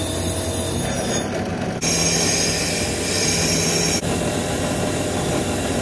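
A drill press spinning a wire wheel brush that is scrubbing rust off a steel axe head: a steady motor hum under a harsh scratching hiss. The sound changes abruptly twice, about two and four seconds in.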